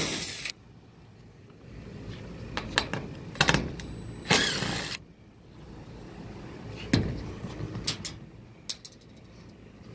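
Scattered clicks and knocks of hands and tools working on an HVAC rooftop unit, with a short burst of rushing noise about four seconds in and a sharper knock near seven seconds.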